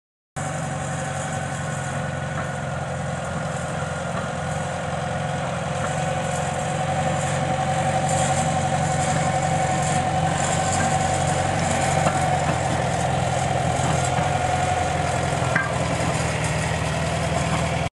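Farmall 404 tractor's four-cylinder gasoline engine running at a steady, low speed as the tractor drives slowly past, growing louder about halfway through as it comes closer.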